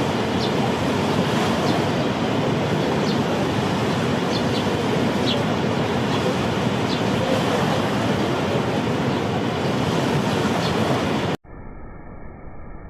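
Steady, loud rush of falling water from a mountain waterfall or river. It cuts off suddenly near the end and gives way to a quieter, muffled sound.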